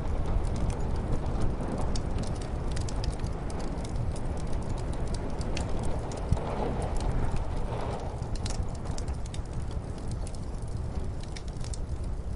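Fireplace crackling with frequent small sharp pops over a steady low rumble of muffled snowstorm wind, the wind swelling briefly around the middle.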